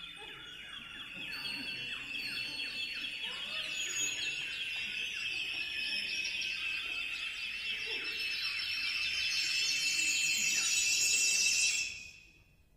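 Chamber ensemble playing a dense, high-pitched cluster of many short, overlapping falling notes that builds steadily louder and cuts off suddenly near the end.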